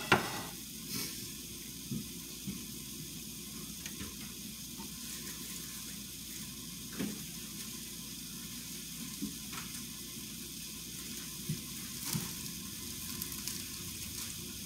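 Hamburger patties frying in a pan, a steady sizzle, with scattered knocks of kitchen things being handled; the loudest knock comes right at the start. Near the end a plastic bread bag crinkles.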